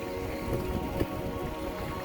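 Background music with steady held tones over a crackly, noise-like texture with many small clicks, and one sharper click about a second in.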